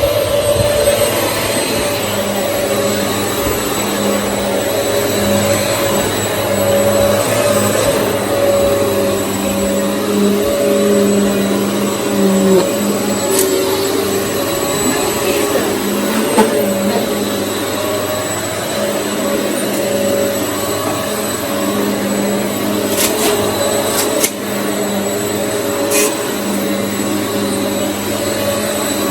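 Hoover EliteSwivel upright vacuum cleaner running steadily, its motor drone holding an even pitch, with a few short clicks in the second half.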